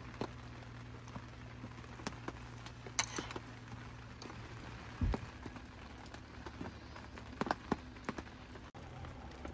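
Rain tapping on a tent: scattered drops, with a sharper tap about three seconds in and a dull thud about five seconds in, over a steady low hum.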